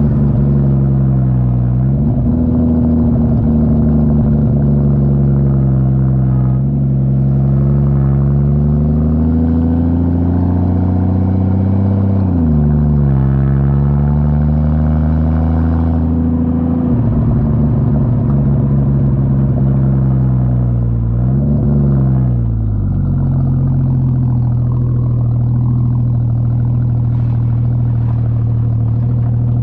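Ford FG Falcon turbo inline-six running through a 4-inch exhaust with the rear muffler deleted. It drones under way, its pitch climbing slowly and then dropping sharply at each gear change, three times. For the last several seconds it holds a steady lower pitch.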